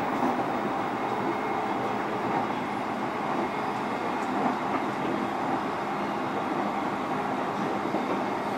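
JR East E531 series electric train running steadily at speed, heard from inside motor car MoHa E530-7. A constant rumble and hiss of wheels on rail and running gear, with no clear rise or fall in pitch.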